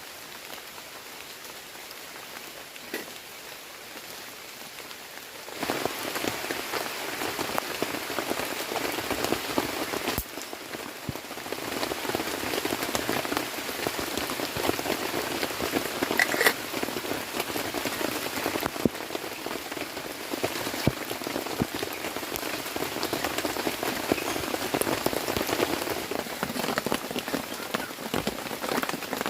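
Heavy rain falling in a steady hiss with scattered sharp drop ticks, growing much louder about five seconds in.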